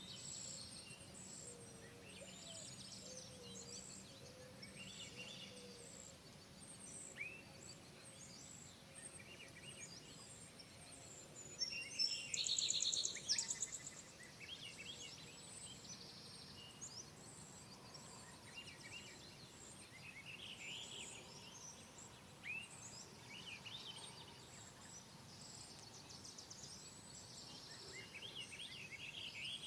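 Several small songbirds chirping and singing at once, with scattered short calls and whistles and a louder, rapid trill about twelve seconds in.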